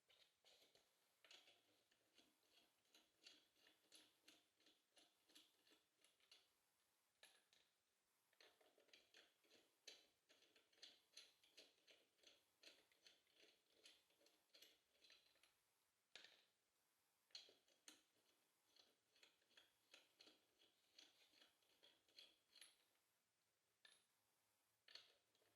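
Faint, even clicking of a ratchet with a 19 mm socket turning the motorcycle's rear-wheel lug nuts, in several long runs with short pauses.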